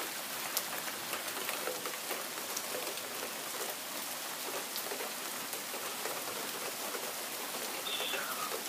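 Steady rain falling: an even hiss with many single close drops ticking through it.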